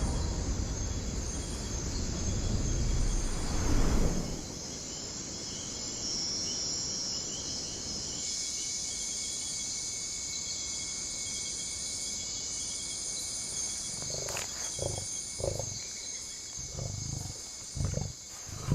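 Jaguar growling and grunting in short low bursts while tackling a sea turtle, over a steady chirring of night insects. A loud low rumble fills the first few seconds.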